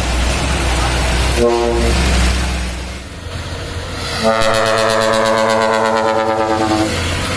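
Dump truck's ship-style trumpet air horn blowing: a short blast about one and a half seconds in, then a long blast of about two and a half seconds starting about four seconds in. The truck's engine rumbles underneath at the start.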